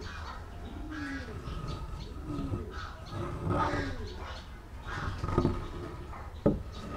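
Doves cooing repeatedly in the background, a low rising-and-falling call about once a second. About six and a half seconds in there is a single sharp knock of wood on wood.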